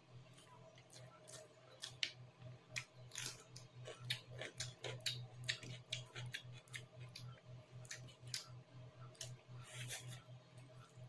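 Close-miked eating of rice and chicken curry by hand: chewing with many quick, wet mouth clicks and smacks, over a steady low hum.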